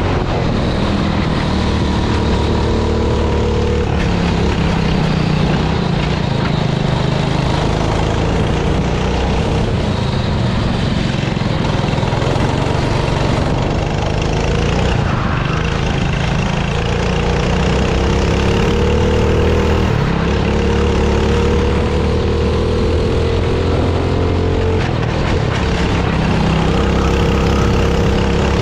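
F400 kart's four-stroke engine heard from onboard, running hard down the straights. It drops in pitch as the kart slows for a tight corner about halfway through, then pulls back up on the exit.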